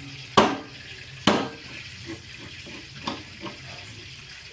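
Metal parts knocking together: two loud clanks with a short ring, about a second apart, then several lighter taps and clicks. Likely the metal condenser and its fittings being handled and mounted on a refrigerator.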